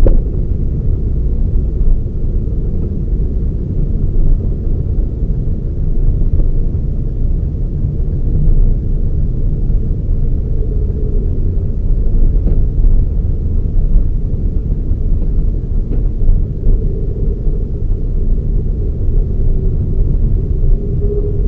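Toyota Raize GR small SUV being driven: a steady low rumble of engine and road noise, with a faint hum rising out of it now and then.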